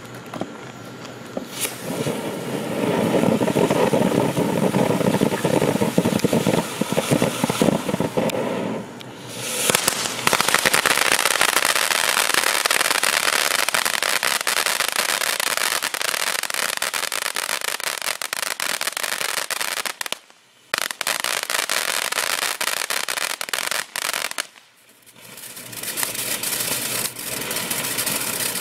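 Miracle Fireworks Popcorn M341 ground fountain burning, spraying sparks with a dense crackle. It drops out briefly three times, about 9, 20 and 25 seconds in.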